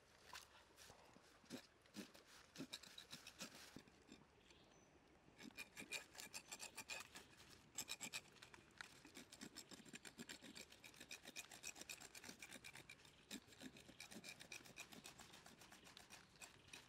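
A knife blade scraping rapidly back and forth over a crocodile's belly skin and scales. It is a faint, quick rasping at about five strokes a second, sparser in the first few seconds.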